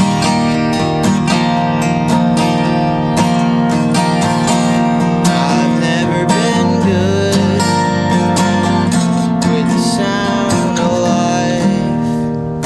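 Acoustic guitar strummed steadily, accompanying a folk song.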